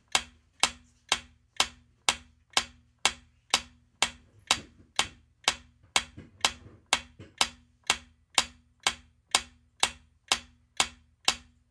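Ticking sound effect of a quiz countdown timer: sharp, even clock-like ticks, about two a second.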